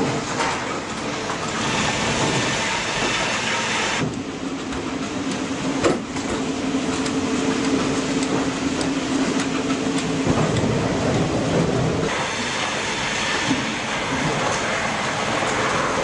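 Rail-mounted log crane and log-sorting conveyor at work in a sawmill log yard: steady mechanical rumble and clatter, with a low hum through the middle stretch and a single sharp knock about six seconds in. The sound changes abruptly twice.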